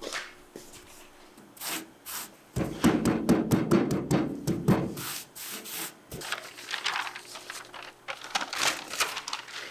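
Chalk-filled pounce pad rubbed in quick scrubbing strokes over a perforated paper pattern on a rusty steel truck panel, loudest a few seconds in. Quieter paper rustling follows as the taped pattern is handled.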